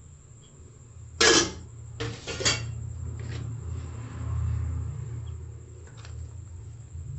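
Stainless steel bowls and utensils clinking: one sharp metallic clank about a second in, then a few lighter clinks a second later, over a steady low hum.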